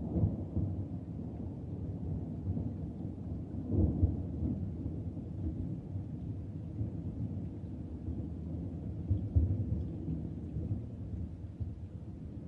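A low, deep rumbling noise that swells louder briefly at the start, about four seconds in and about nine seconds in.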